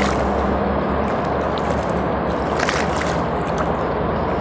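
River water sloshing and lapping against the shoreline rocks, with a steady low rumble underneath and a few brief splashy crackles.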